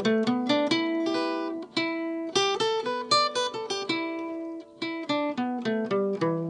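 Yamaha acoustic guitar played with the fingers: a quick run of single plucked notes, some left ringing under the next ones, with a brief pause about three-quarters of the way through.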